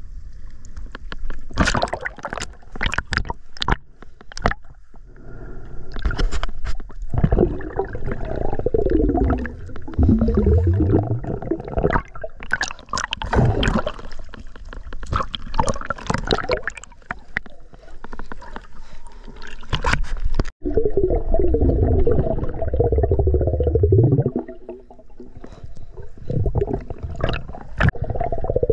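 Water sloshing, splashing and gurgling around a camera held at the surface of choppy water, dipping in and out. About two-thirds of the way through the sound drops out for an instant and turns to muffled underwater bubbling and gurgling.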